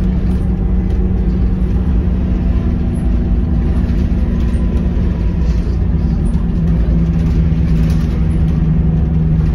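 Scania K230UB city bus heard from inside the cabin while under way: the rear-mounted diesel engine drones steadily over road and body rumble. About seven seconds in, its note drops a little lower.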